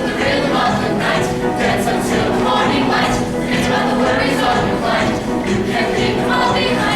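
A cappella choir singing in close harmony, many voices holding and moving chords together, recorded live.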